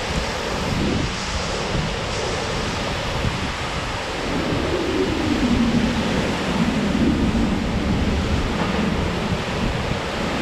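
Thunderstorm wind and heavy rain, with gusts buffeting the microphone in a continuous rush of noise that grows a little louder about four seconds in.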